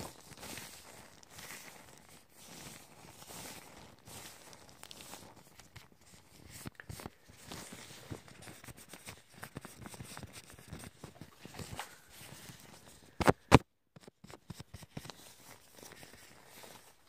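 Soft, irregular rustling and light tapping of gloved hands moving close to the microphone, with two sharp, loud clicks about thirteen seconds in.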